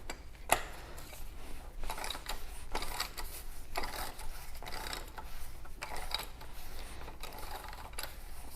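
Socket wrench ratchet clicking in short, irregular runs while the plastic oil filter housing cap of a 3.6L Pentastar V6 is unscrewed.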